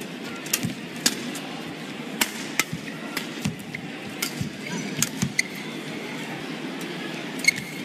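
Badminton rackets striking a feathered shuttlecock in a fast doubles rally: a string of sharp hits at uneven intervals over the hum of an indoor arena.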